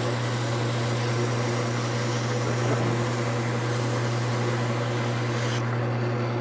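Wood lathe motor running with a steady hum while sandpaper is held against the spinning wood, giving a steady hiss. The hiss stops abruptly near the end as the paper comes off, and the lathe keeps humming.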